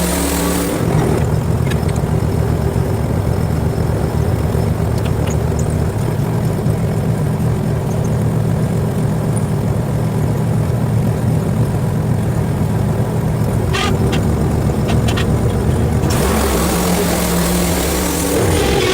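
Portable band sawmill's gasoline engine running steadily, with a brighter hissing stretch and a change in engine note in the first second and again near the end.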